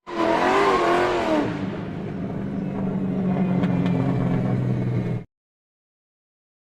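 A car engine revving, its pitch rising and falling, then running steadily with a low hum, cut off abruptly about five seconds in.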